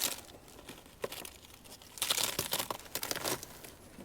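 Crinkling and rustling as the fried bologna sandwich is handled before a bite. It comes in several bursts, the longest and loudest about two seconds in.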